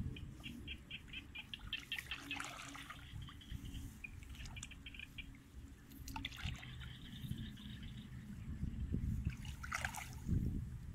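Shallow muddy paddy water sloshing and splashing as hands and legs move through it, with a few louder splashes. A high chirp repeating about five times a second comes and goes in the background.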